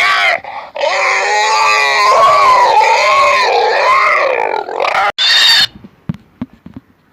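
Pig squealing: a long, loud, high-pitched squeal with wavering pitch lasting about four seconds after a brief break, then a short shriller squeal. Near the end it falls to a few soft, short grunts.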